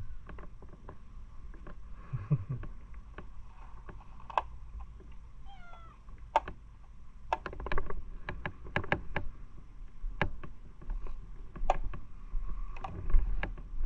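Domestic cat giving a short chirping meow about five seconds in, between scattered light clicks and taps, with the tail of one louder meow at the very start and the onset of another at the end.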